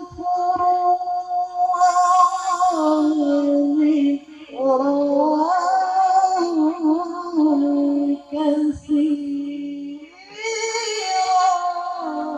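A male qari reciting the Quran in the melodic, drawn-out tilawah style into a microphone, with long held phrases that wind up and down in pitch and short pauses for breath between them. The last phrase ends near the end.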